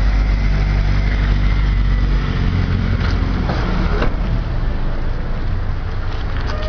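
Steady low rumble of outdoor street noise on the microphone, with a few brief knocks about three to four seconds in.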